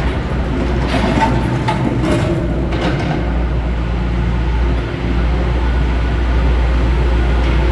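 Cat 420 backhoe loader's diesel engine running steadily, with a few clanks and rattles in the first few seconds.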